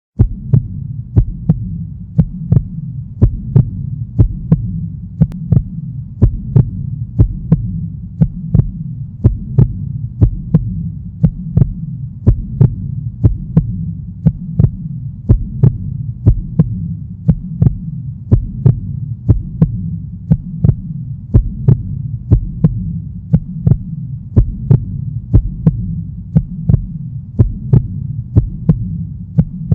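Heartbeat sound effect with echo: steady, evenly spaced thumps over a continuous low rumble.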